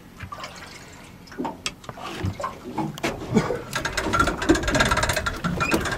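Longline being hauled in over the side of a boat: water sloshing, with clicking and rattling of the line and gear that becomes rapid and busy from about three seconds in.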